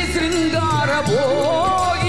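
Music from an old Tamil film song: an ornamented melody that slides and bends in its second half, over a steady drone and a percussion beat.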